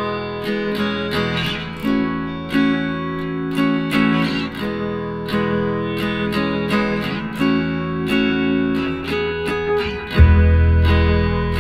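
Background music led by a strummed guitar, with chords struck at a steady pulse. A louder, deeper bass part comes in about ten seconds in.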